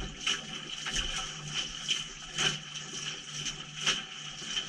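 Washing machine running its wash cycle, heard from inside the drum through a GoPro's waterproof housing: water sloshing with repeated knocks and splashes, irregularly about a second apart, over a steady hum.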